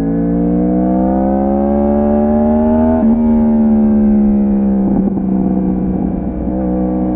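Yamaha R1's crossplane inline-four engine under way: the revs climb for about three seconds, a gear change comes about three seconds in, and then the revs ease off slowly.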